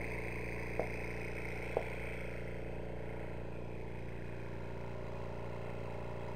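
A steady mechanical drone, like a motor or engine running, with two light clicks about a second apart near the start.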